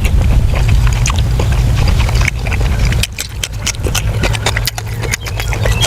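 Close-up wet chewing and lip-smacking on soft, fatty braised pork intestines: a quick irregular run of sharp clicks and smacks over a steady low rumble.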